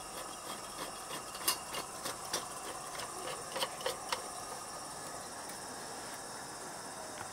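Light clicks and taps of the Coleman NorthStar lantern's green top and glass globe being pressed down and turned into place, clustered in the first four seconds. Under them, a steady high-pitched chirring of insects.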